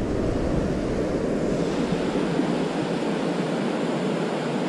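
Steady rush of river water pouring over a weir, with wind rumbling on the microphone that eases in the second half.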